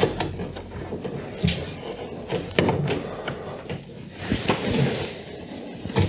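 Irregular plastic clicks and knocks with rubbing and scraping, a few each second or so, as a hand works a rubber drain hose onto its plastic connectors inside a washing machine's cabinet.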